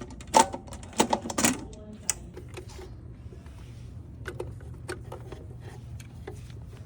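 Sharp clicks and taps of small parts being handled, several loud ones in the first two seconds, then sparser, fainter clicks, over a steady low hum.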